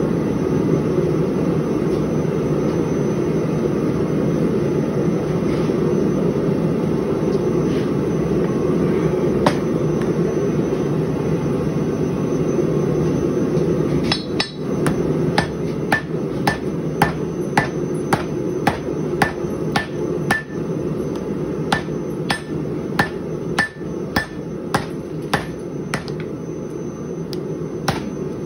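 Hand hammer striking a glowing-hot steel canister on an anvil to forge-weld the packed ball bearings and powder inside into canister Damascus. The blows start about halfway through, come at about two a second, and each has a short metallic ring. A steady rushing noise runs underneath.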